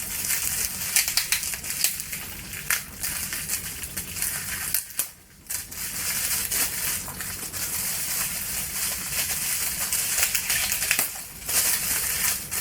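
Packaging being handled and unwrapped by hand, a continuous crinkling and crackling with many small clicks, pausing briefly about five seconds in and again near the end.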